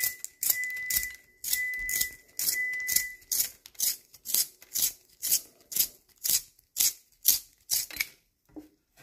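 Carpenter pencil being twisted in a hand-held carpenter-pencil sharpener, its blade shaving the wood in a run of scraping strokes about twice a second. The strokes are longer for the first three seconds, then shorter, and stop about eight seconds in. A thin steady high tone sounds under the first three seconds.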